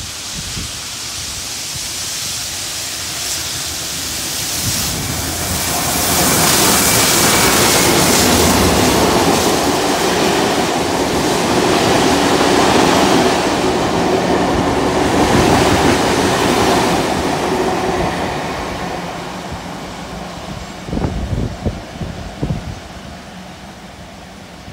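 NSW 59 class steam locomotive 5917 and its carriages passing at speed. The rumble builds over a few seconds, stays loud for about ten seconds as the carriages rush by, then fades away. A few sharp clacks of wheels over the rails come near the end.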